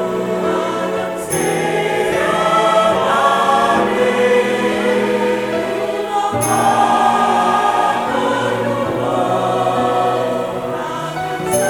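Church choir singing a hymn in several-part harmony, with long held chords that change to new chords twice.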